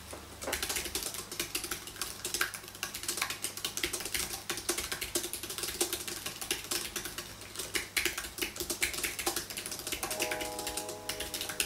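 Fast touch-typing on a low-profile computer keyboard: a rapid, uneven stream of light key clicks.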